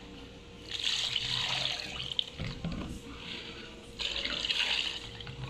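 Strained ground-rice liquid for horchata poured from a plastic bowl into a plastic pitcher of water, splashing in two spells: the first about a second in, the second louder near the end.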